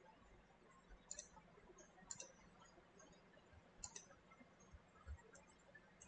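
Near silence with a few faint computer mouse and keyboard clicks, about a second apart.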